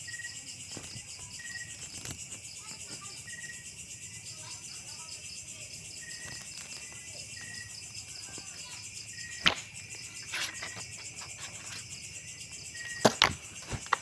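Night chorus of crickets: a steady high-pitched trill, with a short chirp repeating every second or so. A few sharp taps come about two-thirds of the way in and near the end.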